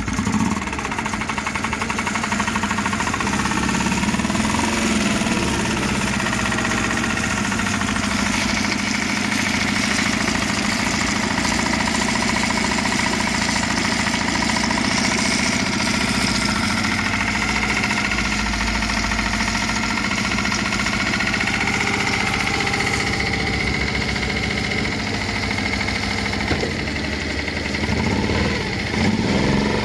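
2010 Selva Goldfish 4 hp four-stroke outboard, a Yamaha F4 clone with a single-cylinder engine, idling steadily just after starting.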